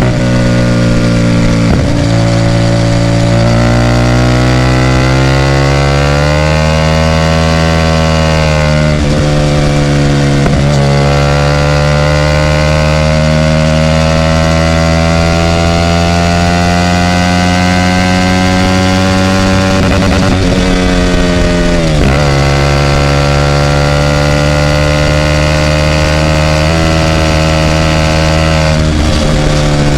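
Hyosung GT250R's 250 cc V-twin through a loud aftermarket racing exhaust while riding. The engine note climbs gradually for several seconds, then drops sharply about ten seconds in and again, more deeply, about twenty-two seconds in, as the throttle closes or a gear changes, before pulling up and holding steady.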